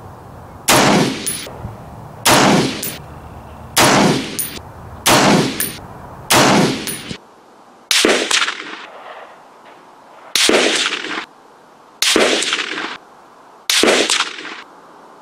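Springfield M1A SOCOM semi-automatic .308 rifle firing nine single shots in slow succession, one every second and a half or two. The last four sound thinner, with less low end.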